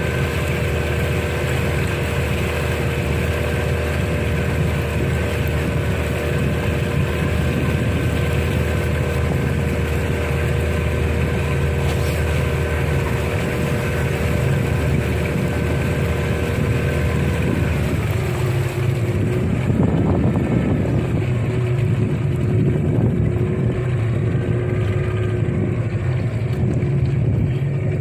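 Longboat's motor running steadily under way. About two-thirds of the way through, the engine note shifts and turns rougher.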